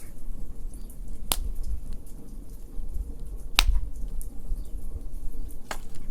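Wood fire in a fire pit crackling, with three sharp pops, about a second in, past the middle and near the end, over a low steady rumble.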